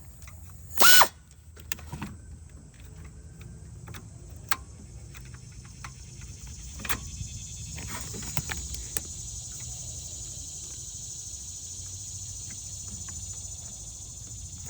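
A short burst from an Aircat 808 long-neck air ratchet about a second in, its motor whining up as it spins. After it come faint, scattered metal clicks and clinks over a steady high hiss.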